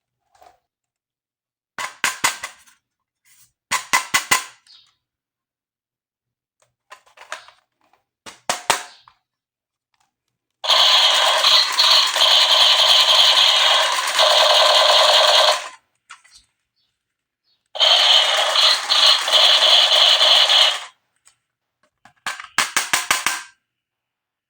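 Toy gun going off in rapid rattling bursts: short bursts of fast clicks, and twice a long loud rattle, about five seconds and then about three seconds long.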